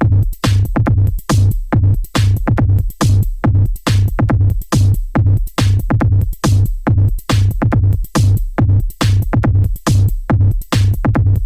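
Electronic dance music with a steady, driving drum-machine beat and heavy bass.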